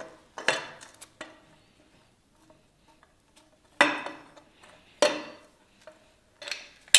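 Stainless steel exhaust header pipe clinking and scraping against the cylinder head and exhaust studs as it is fitted into the port: several sharp metallic clinks, each ringing briefly, with a quiet gap between the first and the rest.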